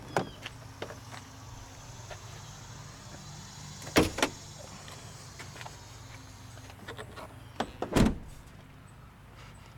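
Pickup truck's door and hood latch being worked: light latch clicks, a sharp clunk about four seconds in as the hood release is pulled and the hood pops, then the driver's door slammed shut about eight seconds in, the loudest sound, over a low steady hum.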